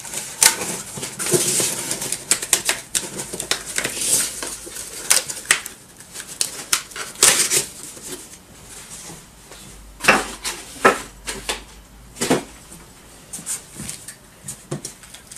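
Cardboard boxes and bubble-wrapped parts being handled inside a shipping carton: irregular rustling, crinkling and light taps, with a few louder knocks in the second half.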